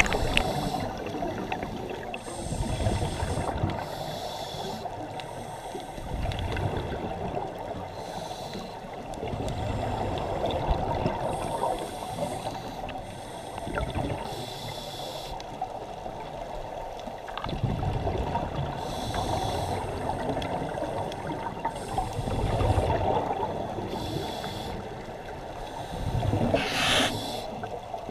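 Scuba diver breathing through a regulator underwater: bursts of exhaled bubbles every two to three seconds over a steady hum, the loudest burst near the end.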